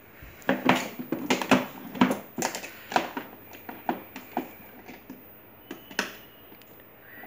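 Hard plastic clicking and knocking as the moulded seat of a battery-powered ride-on toy car is handled and screwed down into the plastic body with a hand screwdriver: a quick run of sharp clicks in the first few seconds, thinning to scattered taps.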